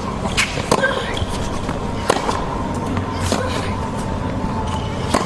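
Tennis rally on a hard court: the ball struck by racquets with sharp pocks, one or two seconds apart, over steady stadium crowd ambience.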